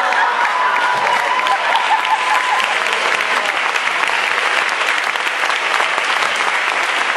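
Audience applauding, a dense steady clapping, with a few shouts of cheering over it in the first couple of seconds.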